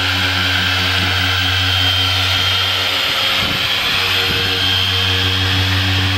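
Harbor Freight dual-action orbital polisher running steadily at speed 5 to 6, a 6-inch blue foam pad pressed against a car door's paint under medium pressure. It gives a steady hum with a high whine over it.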